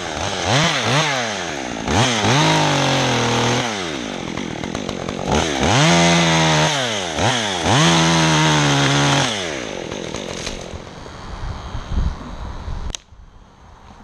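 Two-stroke chainsaw blipped up and down, then twice held at high revs while cutting into a dead tree limb. It drops back to idle about ten seconds in and cuts off suddenly near the end.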